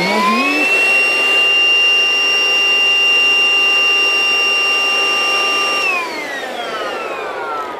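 Hikeren cordless vacuum cleaner's motor running with a high, steady whine as it finishes spinning up. About six seconds in it is switched off, and the whine falls in pitch as the motor winds down.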